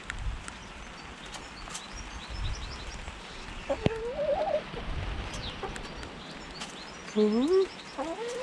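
Hens making a couple of soft, wavering calls, the louder one rising in pitch near the end, with small birds chirping faintly in the background.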